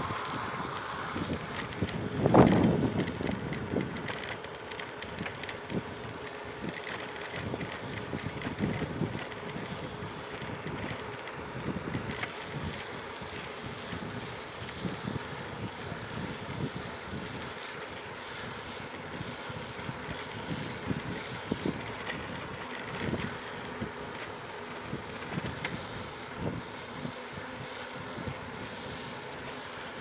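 Ride noise from a bicycle on rough, gravelly asphalt: a steady rush of tyre noise and wind on the microphone, broken by frequent small knocks and rattles over the bumps. A louder rush about two and a half seconds in.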